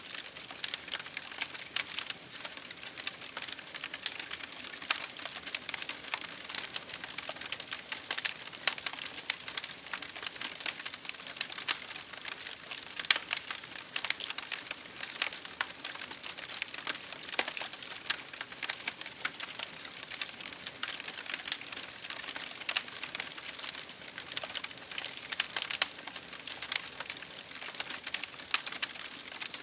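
Wood fire burning in a fireplace, crackling steadily with a dense run of small snaps and occasional louder pops over a soft hiss.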